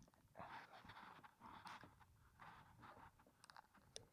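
Near silence with faint, irregular rustling and small clicks: hands handling a common carp in a mesh landing net while the hook is worked out of its lip.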